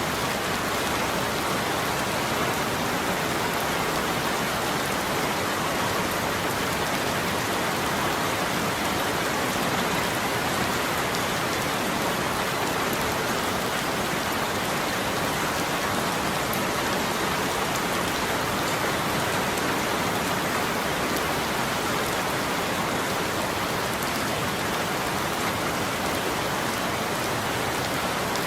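Steady, unchanging rainfall, an even hiss of falling rain with faint scattered drop patter.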